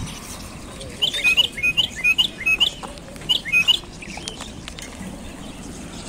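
Small caged birds chirping: a quick run of about ten short, high chirps over two to three seconds, then only faint background.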